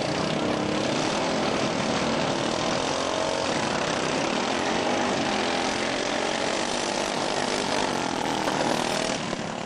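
Modified racing riding-mower engines running hard at high revs during a drag race. The sound holds steady, then falls away about nine seconds in.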